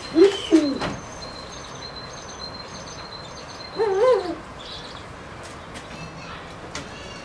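Low, short bird calls, each rising then falling: two in quick succession at the start and one more about four seconds in. Faint high chirps of small birds repeat in the background.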